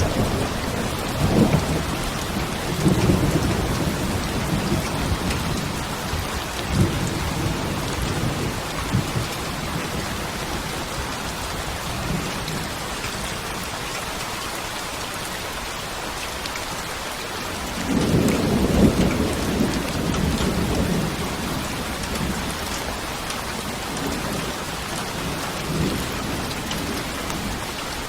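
Steady rain falling, a constant hiss. Low rolls of thunder rumble through the first several seconds and swell again about two-thirds of the way in.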